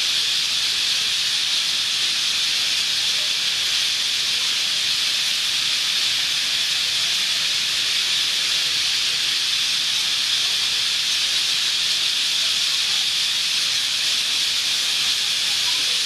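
Huge flock of parakeets and parrots calling all at once, their calls merging into a steady, high-pitched hiss-like din with no single call standing out.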